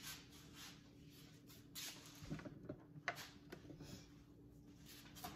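Faint handling sounds of pantry containers being moved: soft rustles, a few light taps and one sharp click about three seconds in, over a low steady hum.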